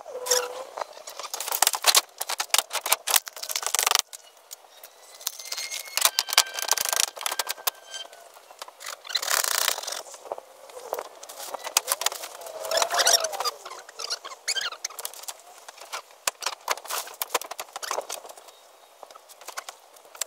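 Plastic roofing tarp rustling and crackling in irregular bursts as it is spread over the roof, with scattered sharp clicks.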